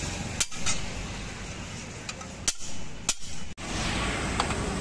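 Hand hammer striking a small iron sheet laid on another hammer's head, shaping a sheet-metal bracket: about four sharp, irregularly spaced metallic strikes. They stop abruptly near the end, leaving a steady background.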